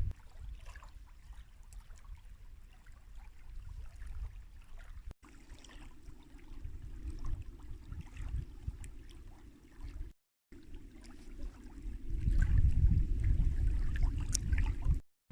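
Wind rumbling on the microphone outdoors, strongest near the end, with scattered small clicks and crackles over it, broken by a few abrupt cuts.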